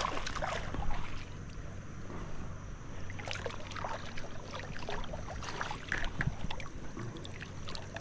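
Creek water splashing and sloshing with scattered clicks and knocks, as a hooked smallmouth bass is brought in and handled.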